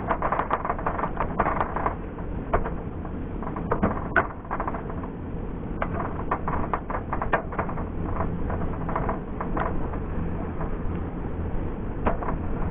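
Meat frying in a stainless frying pan on a propane camp stove, a steady sizzle with frequent sharp clicks of metal tongs and a fork knocking against the pan as the pieces are turned.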